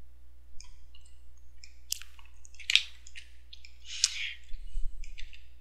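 Soft mouth noises close to a microphone: a few short, wet smacks and breaths about two, three and four seconds in, over a steady low hum.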